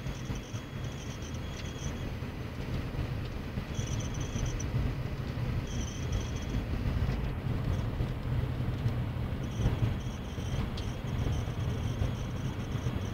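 Ford Focus 2 climate-control system making an abnormal high-pitched squeak that comes and goes in stretches of a second or so, then holds for the last few seconds, over a steady low hum. The squeak is the fault noise in the climate control.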